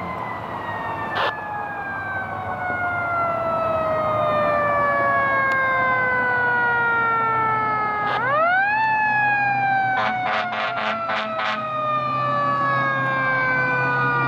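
A fire engine's mechanical siren winding down slowly in pitch, spun back up sharply about eight seconds in and coasting down again, over the low hum of the engine. A rapid run of about seven short horn blasts comes around ten seconds in.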